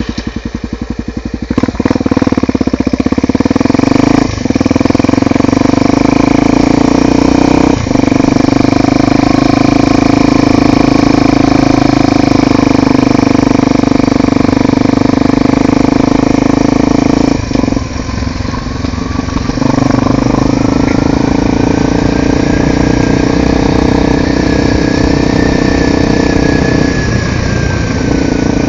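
Honda XR 250 Tornado motorcycle's single-cylinder engine running steadily just after starting, with a few short drops in level and a longer dip partway through.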